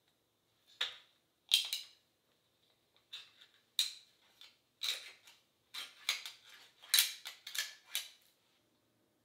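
Metal on metal: the cut lid of a tin can and a small spoon clinking and scraping against the can's rim, an irregular string of short, sharp clicks and scrapes starting about a second in and stopping near the end.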